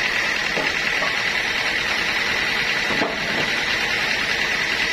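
Sawmill machinery running steadily, a continuous noise with a steady high whine over it.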